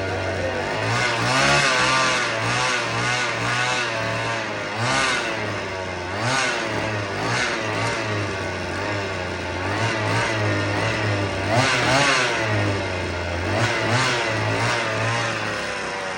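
Husqvarna 50 two-stroke chainsaw running and being revved up and down over and over, its pitch rising and falling every second or two. The engine has low compression, about 80 PSI.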